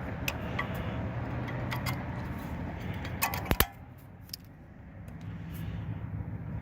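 Light metallic clicks and clinks from metal parts being handled, with a few sharp, louder clinks about three and a half seconds in, over a low background hum.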